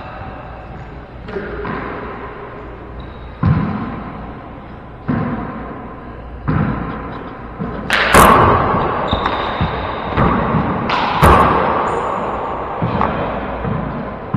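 Rubber handball in play in a four-wall court: several sharp smacks a second or two apart as the ball is struck by gloved hands and rebounds off the walls and floor, each echoing in the enclosed court. The loudest hits come about 8 and 11 seconds in.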